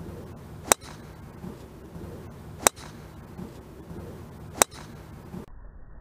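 A golf driver striking a ball: three identical sharp cracks about two seconds apart.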